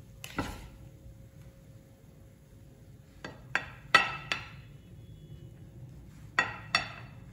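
Plastic spatula knocking against a ceramic plate and the rim of a nonstick frying pan while scooping fried rice onto the plate. One knock comes near the start, four quick knocks come a little after three seconds in, and two more come near the end, each with a short ring.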